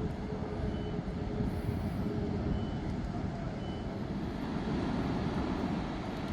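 A heavy vehicle is running, its reversing alarm giving short high beeps about once a second; the beeps stop about four seconds in. Underneath is a steady low rumble.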